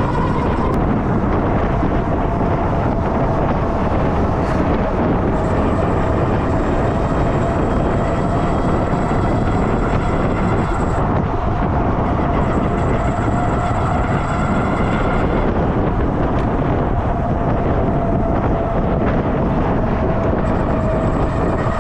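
Electric bike riding at speed: steady wind noise on the microphone with a steady motor whine that drifts slightly in pitch.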